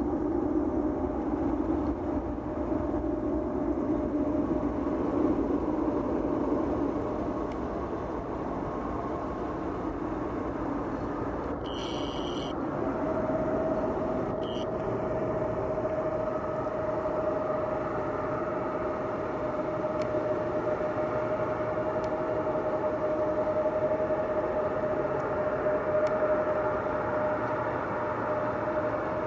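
Jet airliner engines running, a steady rumble with a whine that comes in stronger about halfway through. Two short high-pitched beeps sound near the middle.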